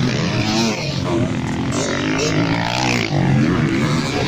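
Motocross bikes racing past one after another on a dirt track, their engines revving up and dropping in pitch again and again, several bikes overlapping.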